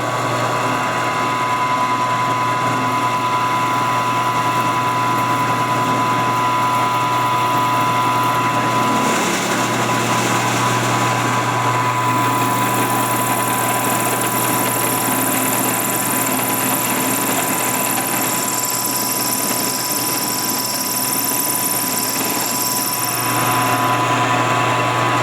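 Milling machine running steadily, its homemade ball cutter cutting the spherical cavity in a mild-steel mold block. There is a low motor hum and a steady whine, and a higher hiss of cutting joins about halfway through and eases off near the end.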